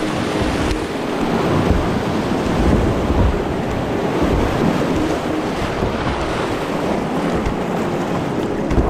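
Whitewater rushing over a shallow boulder rapid right around the kayak, a steady loud wash of water, with wind buffeting the microphone in low, uneven thumps.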